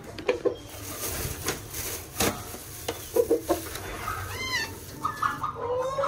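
Chickens clucking around their feed, with sharp knocks and a rattle of grain being added to the feeder; a couple of higher arching calls come near the end.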